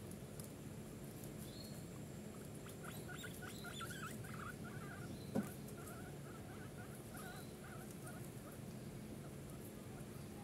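A run of faint, short chirping animal calls repeating for several seconds, with a single sharp click about five seconds in.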